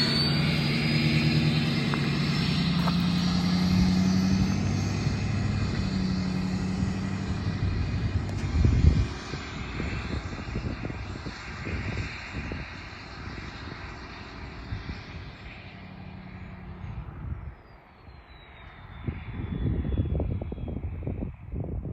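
A 2015 Ford F250's 6.7 Powerstroke V8 turbodiesel, with a Stage 1 KC Whistler turbo and 4-inch straight exhaust, drives by. The engine is loudest at the start, with a high turbo whistle that climbs in pitch over several seconds, then fades as the truck pulls away. The sound grows louder again near the end.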